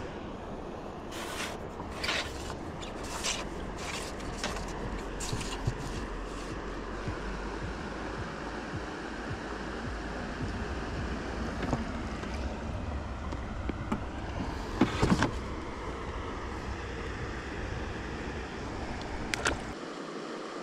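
Steady wind and water noise, with a run of short knocks in the first several seconds and a louder knock about fifteen seconds in.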